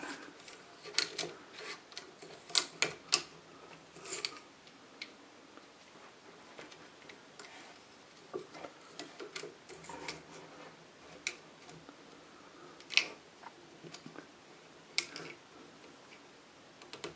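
Scattered light clicks and taps of plastic and metal as a carbon brush holder is fitted back into a washing machine's universal motor and its lead handled: a quick cluster in the first few seconds, then single sharper clicks every second or two.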